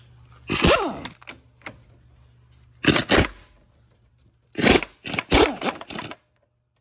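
Cordless impact wrench hammering in three bursts, the last and longest about two-thirds of the way in, breaking loose and backing off a shaft nut on a Subaru 4EAT automatic transmission.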